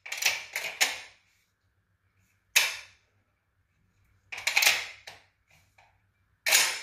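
Steel clacks of an İstanbul Silah Impala Plus semi-automatic shotgun's action being worked, the bolt run back and let snap shut. A quick rattle of clicks at the start, a single sharp clack about two and a half seconds in, another cluster around four and a half seconds, and one more sharp clack near the end.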